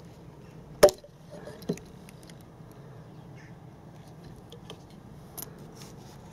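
Ignition coil being pulled out of its spark plug well: one sharp plastic click a little under a second in, a smaller knock just under a second later, then a few light ticks of the coil being handled.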